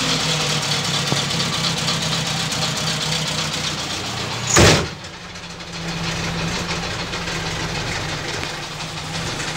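Robur truck's air-cooled four-cylinder engine idling steadily, with the cab door slammed shut once about four and a half seconds in.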